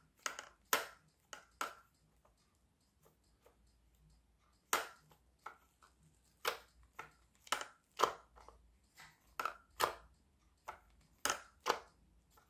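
Sharp clicks and knocks from a 3D-printed plastic flapper paddle-boat mechanism being turned slowly by hand, coming irregularly about once or twice a second, with a pause of a few seconds after the first handful.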